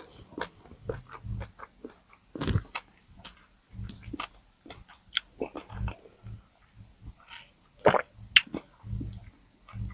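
Close-miked eating of crispy pata, deep-fried pork knuckle: irregular wet chewing and biting with sharp crunches. The loudest crunches come about two and a half seconds in and twice around eight seconds in.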